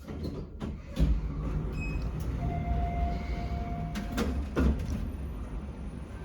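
Orona passenger lift in motion: a steady low rumble with several clicks and clunks, and a held tone of about two seconds near the middle.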